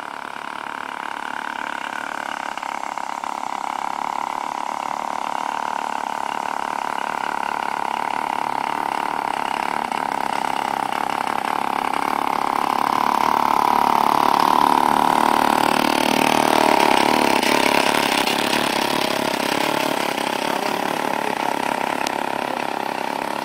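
Small motorcycle engine of a homemade wooden motorcycle running as it rides up the street and past. It grows louder as it approaches, drops in pitch as it goes by about fifteen seconds in, then fades as it moves away.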